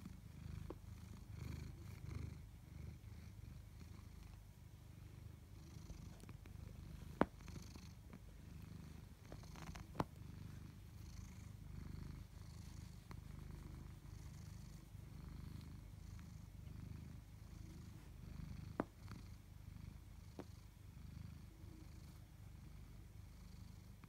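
Tabby cat purring steadily, a low, pulsing rumble, while it is stroked under the chin. Three sharp clicks stand out above the purr, the loudest about a third of the way in.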